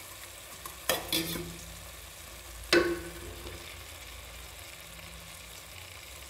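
Raw chicken pieces sizzling in hot tomato-onion masala in an aluminium pressure cooker, a steady frying hiss. Sharp knocks come about a second in, just after, and again near three seconds.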